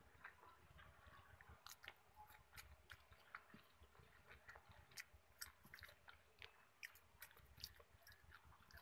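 Quiet close-miked chewing: irregular soft, wet mouth clicks and smacks of someone eating fried food and rice.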